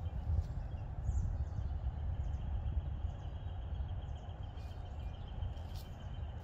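Outdoor ambience with a steady low rumble on the microphone. A faint, thin, high-pitched trill starts a little after a second in and holds for about four seconds, with a few faint chirps.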